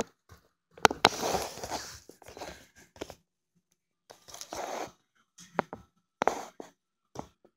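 A child playing with Lego figures: a series of short, crunchy hissing bursts and sharp plastic clicks with silent gaps between them, the loudest clicks about a second in.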